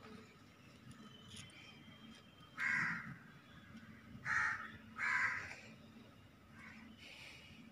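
A crow cawing three times in harsh, short calls, about a second apart, with a couple of fainter caws near the end.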